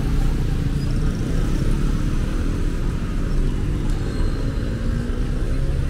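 Motor scooters and cars passing close by: a steady traffic rumble with the hum of small engines.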